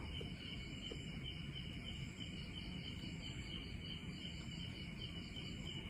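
Crickets chirping faintly and continuously in a quick, even pulse over a low background hum.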